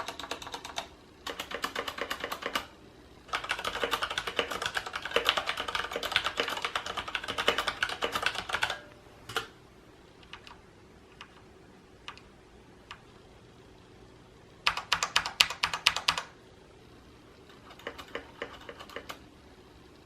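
Mechanical keyboard with Cherry MX switches being typed on in fast runs of sharp key clicks, with a longer stretch of continuous typing early on and short runs later, separated by pauses.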